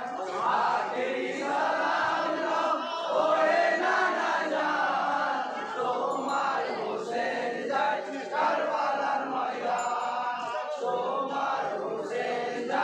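Group of men chanting a Bengali marsiya, a Muharram elegy for Imam Husain, together in unison.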